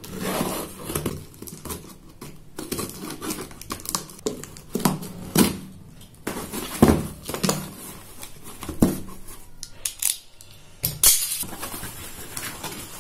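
Packing tape on a cardboard shipping box being slit with a blade and torn, then the cardboard flaps pulled open: a run of irregular ripping and scraping strokes with rustling of cardboard and plastic between them.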